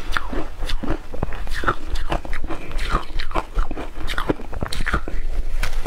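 Close-miked crunching and chewing of a mouthful of frozen shaved ice, a dense run of irregular crisp crunches.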